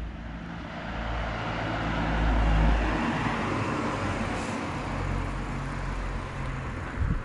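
A motor vehicle's engine running close by with tyre and road noise, swelling to its loudest about two and a half seconds in and then holding steady.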